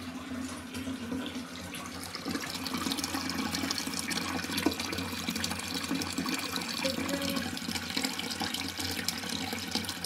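Water running steadily into an Armitage Shanks low-level toilet cistern as its float-operated fill valve refills the tank, growing a little louder about two seconds in.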